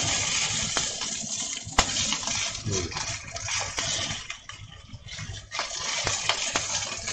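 Food sizzling in a small cast-iron skillet on high heat while a wooden spatula stirs and scrapes it, with a sharp tap of the spatula on the pan about two seconds in. The sizzle eases for a moment past the middle, then picks up again.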